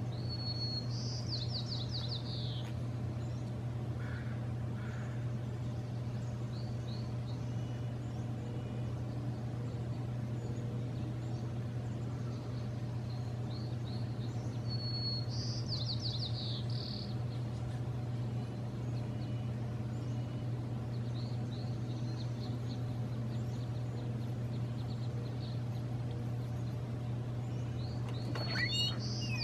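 A songbird sings the same short song three times, roughly every 14 seconds: a clear held whistle followed by a quick run of falling notes. Scattered short chirps come between the songs, and a steady low hum goes on throughout.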